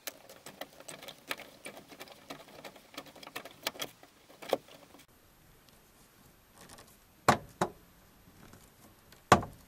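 A screwdriver turning a rusty screw out of a car door's pull handle: a rapid run of small clicks and creaks for about five seconds. Then a few sharp separate clicks as the handle is worked loose, the loudest near the end.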